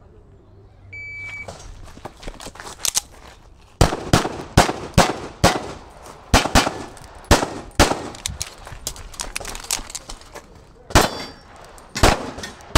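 An electronic shot-timer start beep about a second in, then a string of pistol shots: a few faint ones, then loud shots from about four seconds in, many fired in quick pairs, each with a short echo.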